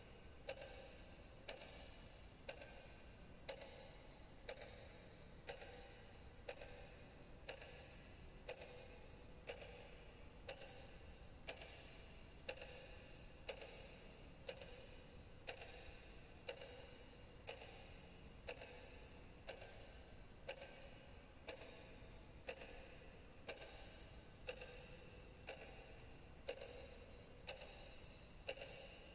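Clock ticking steadily and faintly, about one tick a second.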